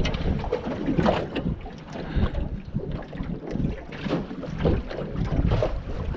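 Wind buffeting the microphone in irregular gusts, with water lapping against a small aluminium boat.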